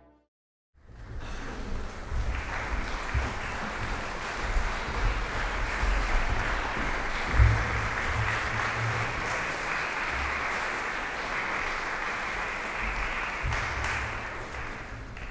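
Audience applauding steadily, starting about a second in after a brief silence, with some low thumps underneath.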